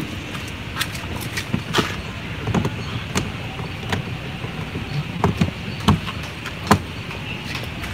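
Plastic clicks and knocks from a car's rear cargo trim cover over the jack and toolkit compartment as it is handled and pressed back into place. About ten separate knocks come at irregular intervals.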